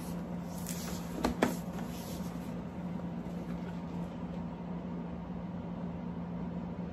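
Large cardboard toy box being handled and turned over, with a couple of knocks about a second and a half in, over a steady low electrical hum.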